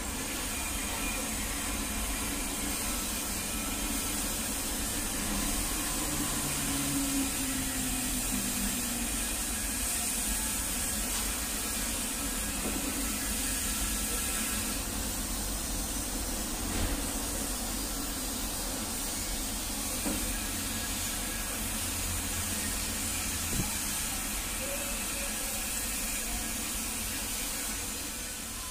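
Xiaomi continuous-mist trigger spray bottle spraying a fine mist: a steady hiss, strongest in the high treble, swelling and dipping slightly as the trigger is worked.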